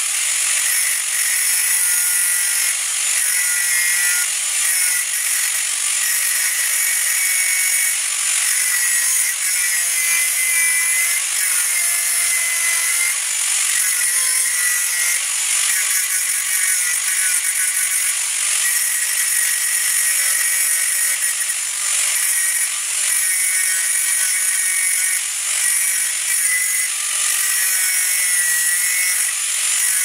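Angle grinder running continuously against the steel casing of an air-conditioner condenser, throwing sparks: a steady, loud, high-pitched grinding whine whose pitch wavers as the disc bites and eases.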